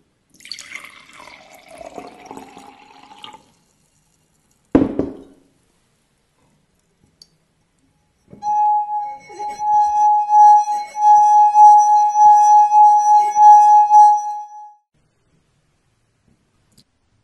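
Water poured from a glass jug into a stemmed beer glass, then a single knock. A wet fingertip circling the rim of the part-filled glass then makes it sing a loud steady ringing tone for about six seconds.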